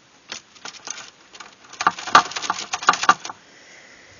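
Small hard clicks and rattles from handling the parts and screws of an old Key-Tronic keyboard. A few scattered clicks come first, then a quick dense run of them about two seconds in.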